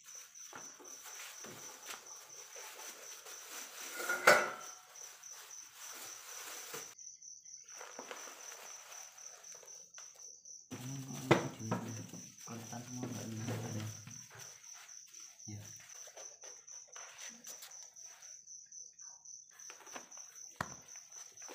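Crickets chirping steadily, with a knife cutting and hands working a split jackfruit on a concrete floor. Two sharp knocks stand out, the loudest about four seconds in and another about eleven seconds in.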